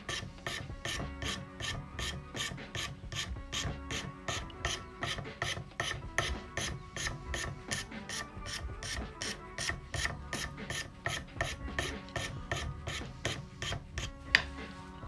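Flat hand file rasping a wooden tobacco-pipe block held in a vise, in steady back-and-forth strokes at about three a second.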